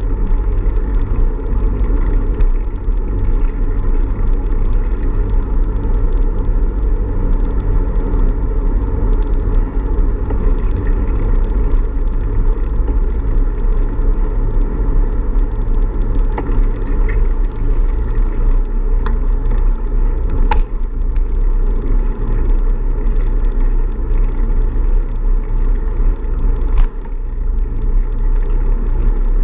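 Steady low rumble of wind and road noise on the microphone of a camera riding on a moving bicycle, with two sharp clicks, one about two-thirds through and one near the end.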